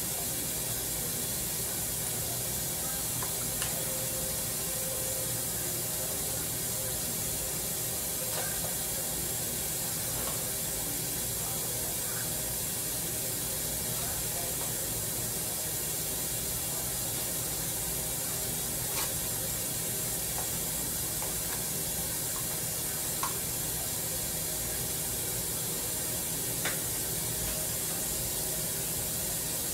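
Steady hiss of food cooking and steaming on an electric stovetop, with a few faint light clicks scattered through it.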